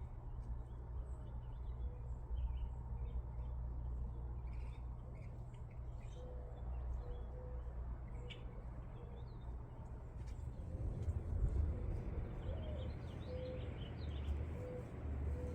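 Scattered faint bird chirps over a steady low rumble, with a quick run of chirps near the end.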